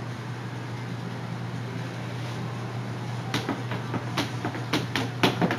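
A steady low hum, then, from a little past halfway, a quick run of about eight sharp wooden knocks in two seconds, loudest near the end, as a broom is knocked about by a small child.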